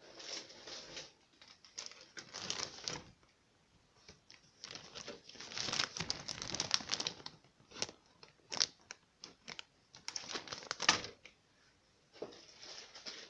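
Clear plastic bags of model kit parts crinkling and rustling as they are handled, in irregular bursts with a few sharp clicks.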